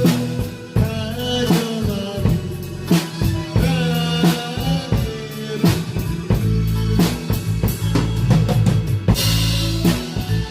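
Drum kit played to a Korean trot backing track: a steady beat of bass drum and snare hits under the song's melody.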